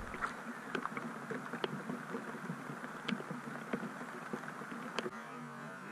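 Steady rain falling on a lake surface: an even hiss with many irregular sharp ticks from drops striking close by.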